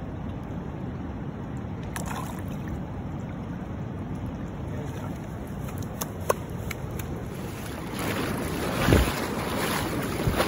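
Steady rush of river water with wind buffeting the microphone, a few small splashes and knocks, then louder splashing of water near the end.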